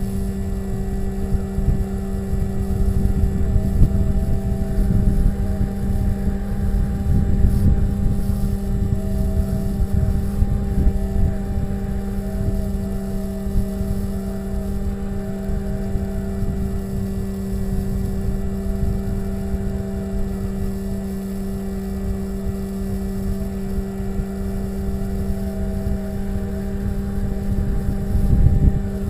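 Electric motor and propeller of a Bixler RC glider running at a steady pitch, recorded from a camera on board, with wind rumbling on the microphone.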